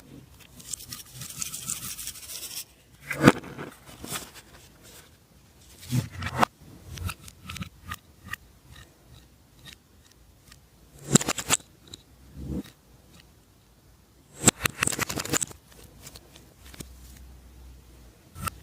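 Slime being handled and mixed by hand: several short bursts of sticky clicking and crackling, with a brief hiss near the start.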